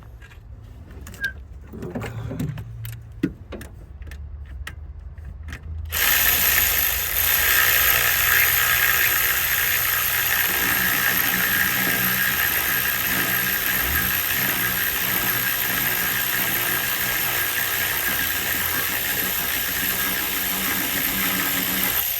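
A few tool clicks and knocks, then a handheld power tool starts abruptly about six seconds in and runs steadily for some sixteen seconds before cutting off. It is spinning out the alternator's long mounting bolt on the Isuzu 4JJ1 engine.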